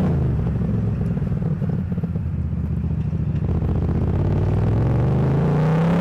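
A motor vehicle's engine on the move: its pitch falls as it slows at the start, it runs low and steady, then it rises again as the vehicle speeds up near the end.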